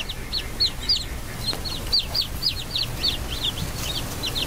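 Newly hatched chicks peeping: a steady run of short, high peeps, about four a second, with a brief pause about a second in.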